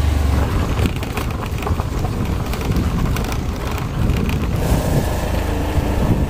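Motor scooter running while riding along a dirt track, with wind rumbling on the microphone. The sound shifts about four and a half seconds in.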